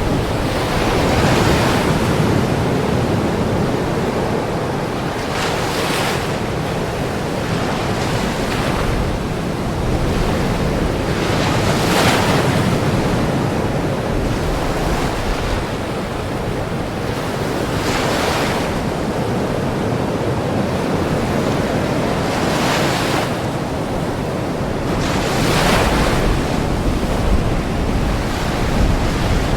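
Ocean waves breaking on a shore, one surge of surf every three to six seconds over a constant wash, with some wind noise on the microphone.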